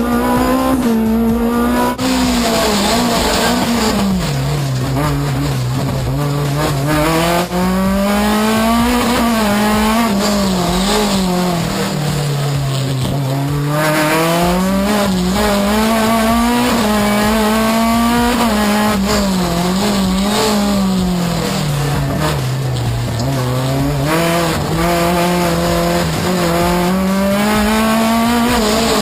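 Race car engine heard from inside the cockpit, revving up and dropping back again and again as the car accelerates and slows through a slalom course. The pitch climbs and falls in long swells a few seconds apart.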